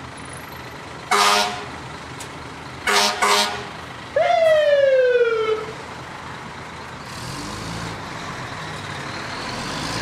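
Fire engine sound effects over a low engine rumble. One air horn blast comes about a second in and two short blasts about three seconds in, then a single siren wail falls in pitch. The engine noise swells near the end.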